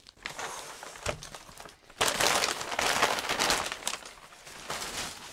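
Crumpled brown kraft packing paper rustling and crinkling as it is handled and pulled away from a longboard deck, loudest for a couple of seconds in the middle.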